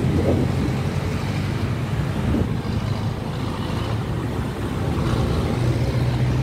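Street traffic: cars and motor scooters running past, with a steady low hum from a nearby engine that is most noticeable near the start and again about five seconds in.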